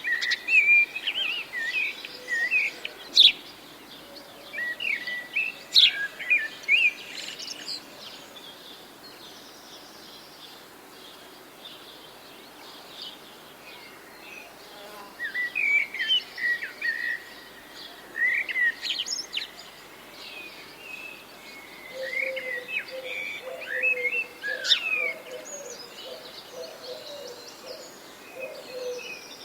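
Songbirds chirping and singing in bursts of short, quick notes, with a quieter lull of several seconds in between.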